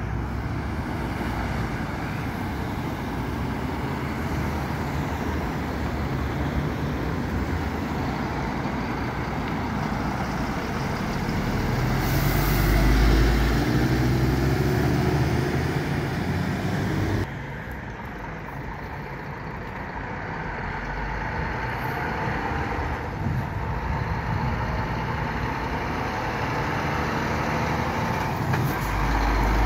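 Road traffic: cars and trucks driving through an intersection with steady engine and tyre noise. A box truck passes loudest a little before halfway, the level drops suddenly soon after, and a semi-trailer truck's engine grows louder near the end.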